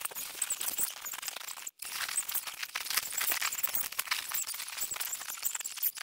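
Dense crinkly rustling and crackling of sleeping pads, bags and fabric being handled on the tent floor, with a brief break about two seconds in.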